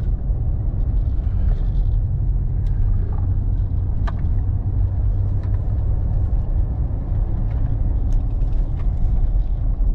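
Car driving, heard from inside the cabin: a steady low rumble of engine and road noise, with a few faint clicks and rattles.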